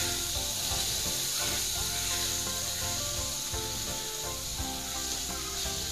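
A spatula scraping and stirring sago grubs and sago flour in a frying pan, over a steady hiss of frying.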